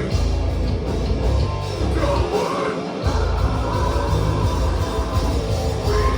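Loud, heavy hardcore punk played by a full band: distorted guitars, bass and drums, with shouted vocals. The bass and drums drop out for a short break a little past two seconds in, then the band comes back in.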